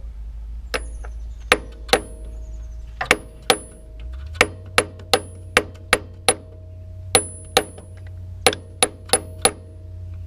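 Ball peen hammer tapping an axle seal into its housing: about sixteen sharp metallic strikes in uneven groups, each with a brief ring, driving the seal in toward flush. A steady low hum runs underneath.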